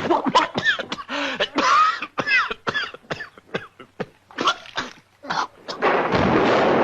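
1940s cartoon sound effects: an irregular string of short sharp pops and squeaky sounds that bend up and down in pitch. A steady hissing noise comes in near the end.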